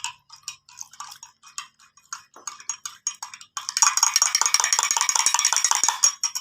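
Metal spoon stirring in a glass, clinking against the sides about three times a second. About three and a half seconds in it becomes much faster and louder, a dense rapid clinking, then stops shortly before the end.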